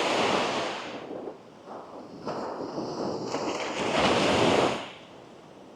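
Small sea waves breaking and washing up on a sandy beach in two surges: the first fades about a second in, and the second builds from about two seconds in, peaks just before the end and then drops away.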